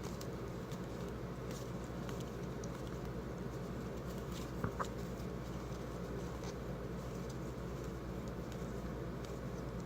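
Faint light clicks and rustles of trading cards being handled and flipped through, with a small tap about halfway, over a steady low hum.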